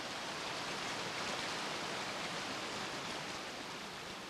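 River water rushing over a shallow weir and around old wooden piles: a steady, even rushing hiss.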